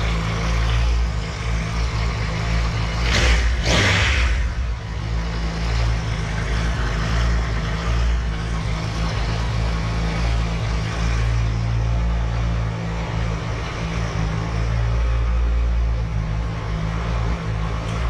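Triumph Tiger 1200 Explorer's three-cylinder engine running at idle, checked by ear for clutch-basket rattle. About three and a half seconds in it briefly gets louder.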